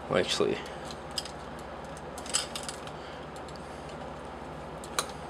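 Light plastic clicks and taps as a Transformers Revenge of the Fallen Voyager Bludgeon figure is handled and its limbs are posed, a few scattered clicks with a sharper one near the end.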